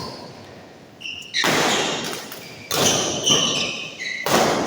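Badminton rackets striking the shuttlecock in a doubles rally: about four sharp hits, each ringing on in the echo of a large hall.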